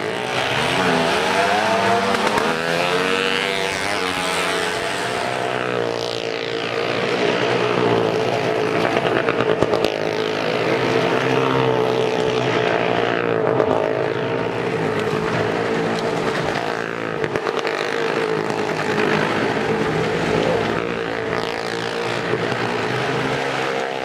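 Two or more motorcycle engines running continuously as the riders circle the vertical wooden wall of a well-of-death (maut ka kuan) drum, the pitch rising and falling as they rev.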